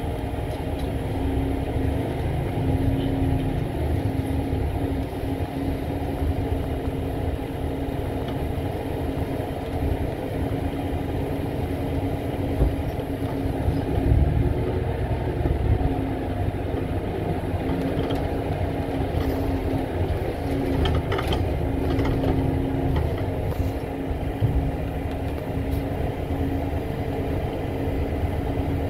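A bus's engine and road noise heard from inside the passenger cabin, running steadily as the bus drives, with a low hum that comes and goes and a few brief clicks about two-thirds of the way through.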